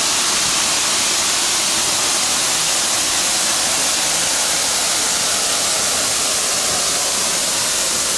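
Steam locomotive venting steam: a loud, steady hiss that starts suddenly just before and holds unbroken.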